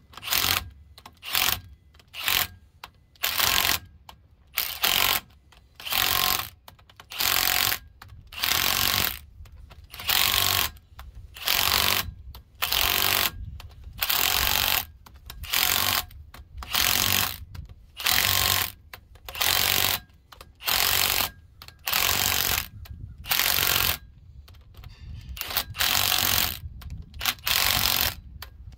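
Cordless impact wrench hammering bolts tight on a combine's pulley hub plate, in a long run of short trigger bursts a little more than one a second.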